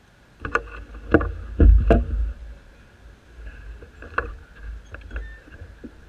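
Handling noise on the camera as it is bumped and turned: a cluster of sharp knocks over a low rumble in the first two seconds, then a few lighter knocks.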